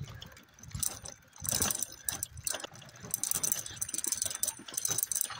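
Bicycle rattling and clicking as it is ridden over a rough forest track, with irregular knocks and a dense high ticking throughout.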